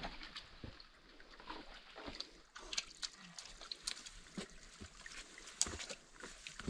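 Footsteps scrambling up a steep rocky trail: boots scuffing and knocking on stones and roots, with scattered irregular small clicks.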